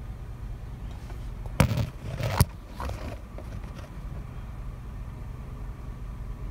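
2011 Kia Sorento's engine idling with a steady low hum heard from inside the cabin, warming up after a coolant drain and fill. About one and a half to two and a half seconds in come a few sharp knocks with a short scraping clatter, the loudest sounds here.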